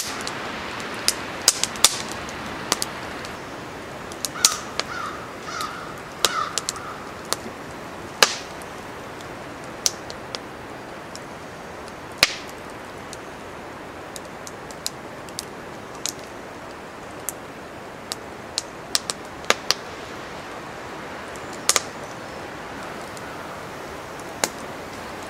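Small fire of split softwood kindling crackling, with sharp, irregular clicks and knocks as sticks are laid onto it, over a steady windy hiss. A short run of high chirps sounds about four to seven seconds in.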